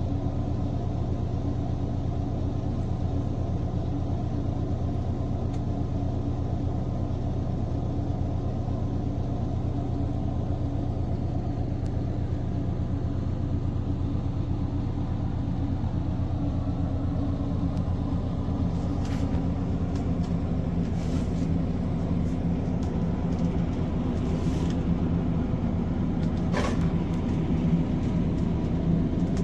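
Steady low mechanical droning from an engine or motors, holding an even pitch, with a slightly higher note coming in a little past the halfway point and a few faint clicks near the end.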